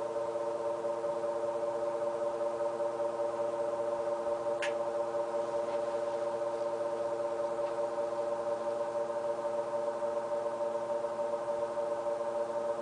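Air King BA14 box fan running on low speed with a steady hum made of several steady tones. A single short click sounds about four and a half seconds in.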